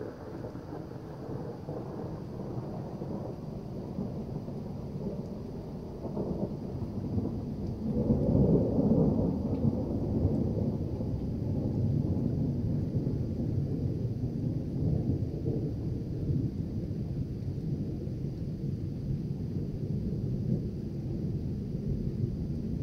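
Thunder rumbling and rolling, swelling about six seconds in to its loudest a few seconds later, then rolling on more evenly.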